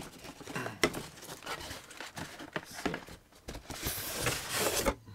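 Cardboard packaging being opened and handled: scattered knocks and scrapes, then a longer rustling, scraping stretch of cardboard starting about three and a half seconds in and lasting over a second.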